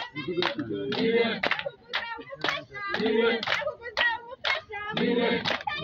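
A woman singing a Kirundi amayagwa song in phrases over steady hand-clapping at about two claps a second.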